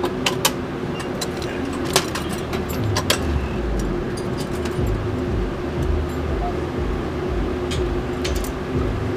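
Sharp metal clicks and clinks of a zipline seat's harness buckles being unfastened, over a steady hum. After about three seconds, a low rumble of wind on the microphone takes over.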